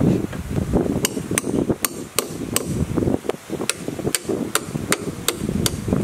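A hammer knocking repeatedly against the cabin's wooden wall boards, about a dozen sharp, evenly paced blows at roughly two to three a second, starting about a second in. Low rustling noise runs underneath.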